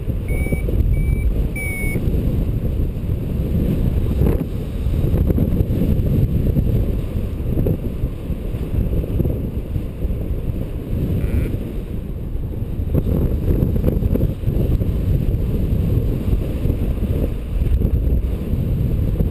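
Airflow buffeting the microphone in paraglider flight, a loud, steady low rumble. In the first two seconds, three short beeps from the flight variometer.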